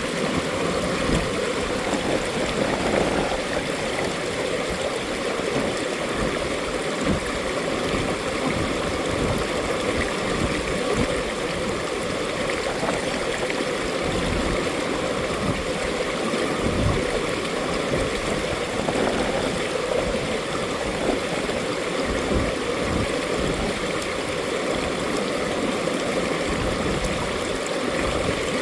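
Mountain valley stream flowing with a steady rush and gurgle of water.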